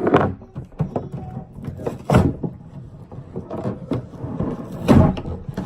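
A string of close clicks, knocks and rustles, with three louder thumps about a quarter second, two seconds and five seconds in: food, containers and utensils being handled at the eating table.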